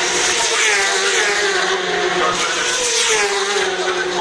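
Superbike racing motorcycles passing on the circuit at speed. Two passes are heard, about half a second in and again from about two seconds in, each engine note dropping in pitch as the bike goes by.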